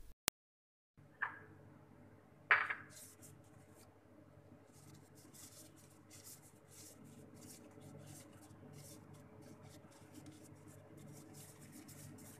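Thin plastic food-handling gloves crinkling and rubbing in quick rustles as gloved hands roll soft bread dough into balls. Two sharp knocks come first, about one and two and a half seconds in, the second the loudest.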